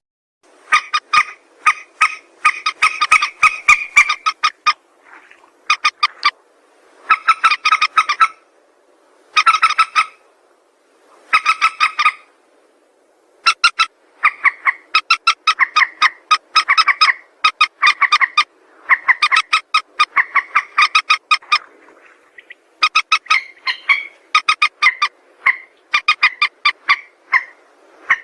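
Mandar sawah, a paddy-field rail, calling: loud bouts of short harsh notes repeated several times a second, broken by brief pauses.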